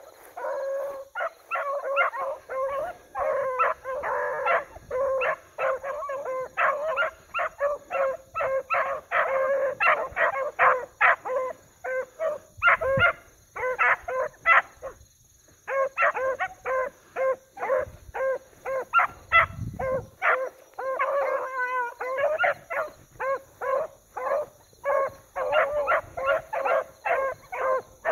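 A pack of beagles baying in rapid, overlapping barks while running a rabbit's trail, with a brief pause about fifteen seconds in.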